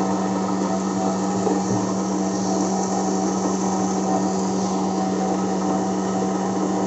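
STC Swaroop domestic flour mill (aata chakki) running steadily while grinding wheat into flour: a constant motor hum with a whirring noise over it.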